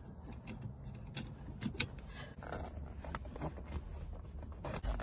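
Handling noise inside a car: a padded jacket sleeve rustling and the phone being moved, with scattered small clicks and knocks as cardboard air fresheners are hung on the dash phone mount and a rear-seat headrest.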